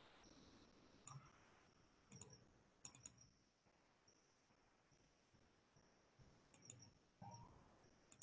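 Faint computer mouse clicks, scattered singly and in quick pairs, over near-silent room tone.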